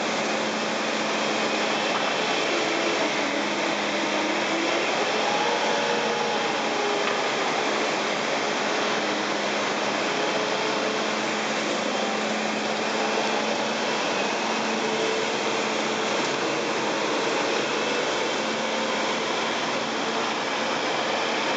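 Bobcat T770 compact track loader's diesel engine running steadily under load, with faint wavering whines over the drone as it works the bucket and moves on its rubber tracks.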